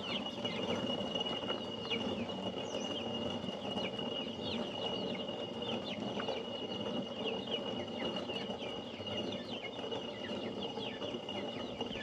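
Chickens and chicks calling, with many quick, short, falling peeps over a steady background noise and a thin, steady high whine. It cuts off suddenly at the end.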